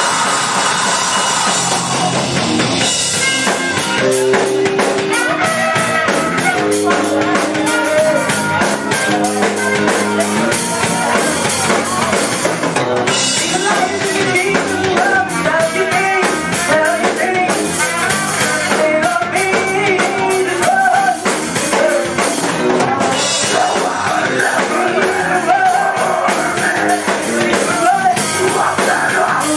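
Live rock band playing loud, with drum kit, electric guitar and bass under vocalists singing into microphones. The band plays a heavy, rap-influenced rock style.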